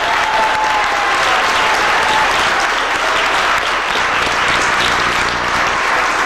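Audience applauding steadily, with a few voices calling out over the clapping near the start.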